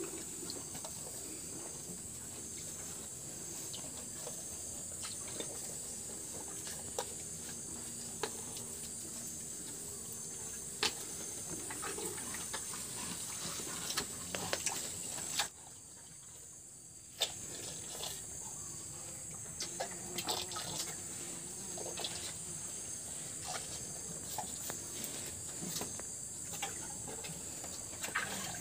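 Cattle drinking water from a plastic paint bucket: scattered small sips and splashes of water over a steady high hiss. The sound drops out for about two seconds a little past halfway.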